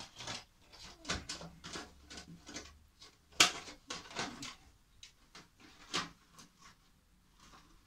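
Cut-down plastic ice cream tub rustling and clicking as it is worked by hand into the slots at the back of a small milling machine's column, with a sharp knock about three and a half seconds in and another near six seconds.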